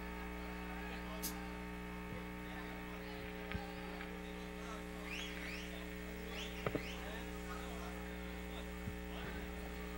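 Steady electrical mains hum from the stage sound system, with a few faint clicks and short chirps now and then.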